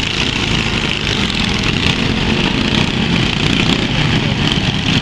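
Several riding lawn mower engines running together as the mowers drive around.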